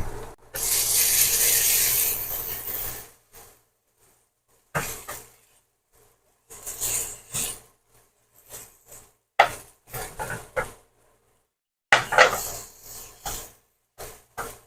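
Cookware and utensils knocking and clattering, with a loud hiss lasting about two and a half seconds near the start.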